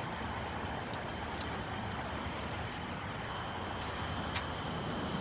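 Steady outdoor background noise: an even rushing hiss with faint high steady tones above it, and no single clear event.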